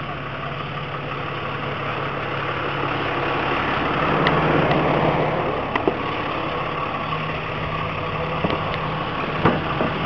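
Flatbed tow truck's engine idling steadily, growing louder over the first few seconds, with a few sharp clicks and knocks on top.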